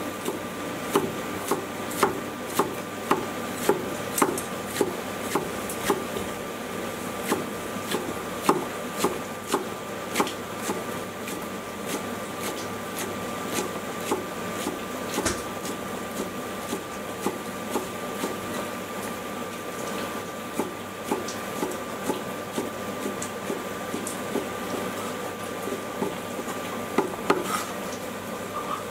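Chinese cleaver chopping green vegetable stalks on a thick wooden chopping block: sharp knocks about two a second, thinning out and softening midway and picking up again near the end. A faint steady high tone runs underneath.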